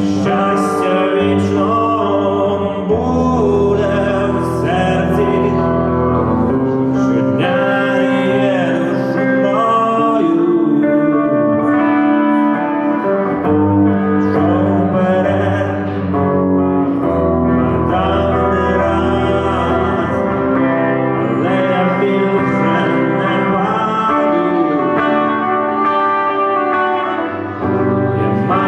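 Live performance music: the instrumental opening of a pop song, with sustained chords and a melody line that wavers in pitch, with no lyrics sung yet.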